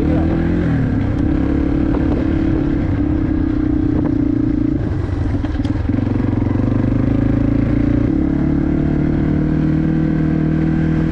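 Yamaha TT-R230 dirt bike's single-cylinder four-stroke engine running while riding, its note wavering about five seconds in and changing pitch about eight seconds in.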